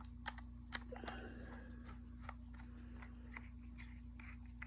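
Small metal lock parts being handled: two sharp clicks within the first second, then scattered faint ticks and taps, over a steady low hum.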